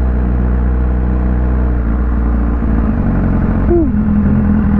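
BMW S1000RR's inline-four engine running at a steady speed under way, with wind rush. Its note changes about three seconds in.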